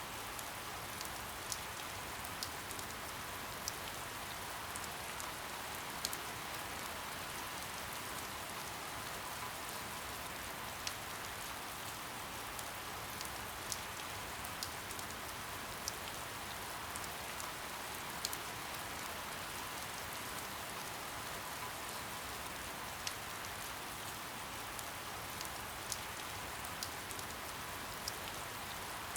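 Steady soft rain: a continuous even hiss with scattered sharp ticks of individual drops landing close by.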